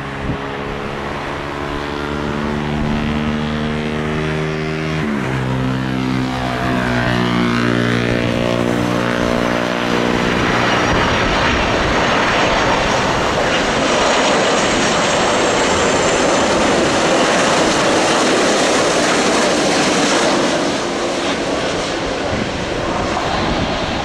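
Airbus A330-200 twin-engine jet airliner on final approach to landing. Its engines give a steady whine whose tones drop in pitch about five seconds in. A broad jet roar then builds and is loudest as the aircraft passes close, easing off a few seconds before touchdown.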